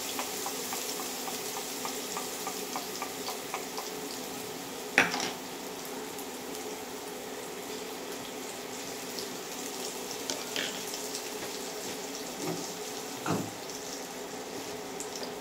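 Spice paste sizzling in hot mustard oil in a non-stick kadai on a low flame, with small crackles and spits through the first few seconds. A sharp knock comes about five seconds in, and a duller one near the end.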